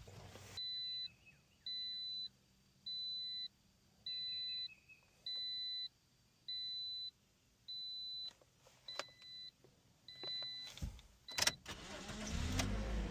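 A run of about nine even electronic beeps, each about half a second long and a little over a second apart, from the 2010 Toyota Corolla or the key-programming tool during key programming. Near the end the car's four-cylinder engine cranks and starts, settling into a steady idle.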